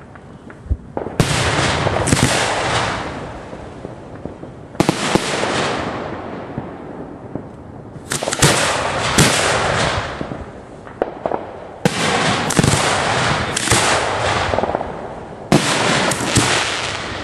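Fireworks firing at close range from ground launch racks: five waves of rapid bangs and crackling, each lasting a second or two and coming every three to four seconds.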